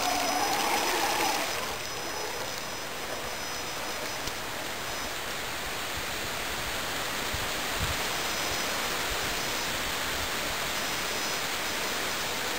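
An RC monster truck's motor whines, wavering in pitch, and cuts out after about a second and a half, leaving a steady rushing noise.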